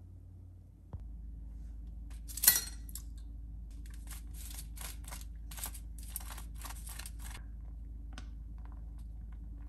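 Kitchen handling sounds: one sharp, ringing clink, then a quick run of about a dozen short, crisp strokes, three or four a second, with a few fainter ones near the end.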